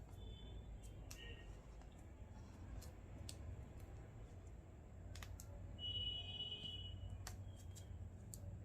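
Light clicks and taps of small plastic toy pieces being handled, with a high squeak lasting about a second some six seconds in.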